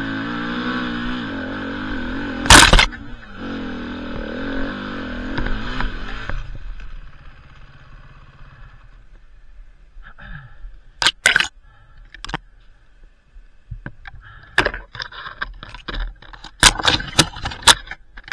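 KTM EXC 450 single-cylinder four-stroke engine running with wavering revs, with a sharp click about two and a half seconds in. The engine sound falls away about six seconds in, leaving a few sharp clicks and knocks, a cluster of them near the end.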